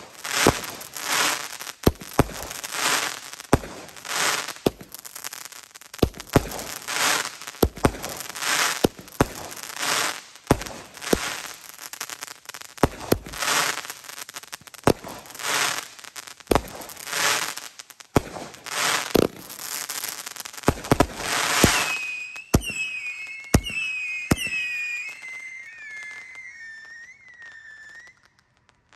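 Consumer firework cake firing shot after shot, about one a second, each a sharp bang followed by a crackling burst. About two-thirds of the way through, the bangs give way to a run of short whistling chirps that step down in pitch and fade away.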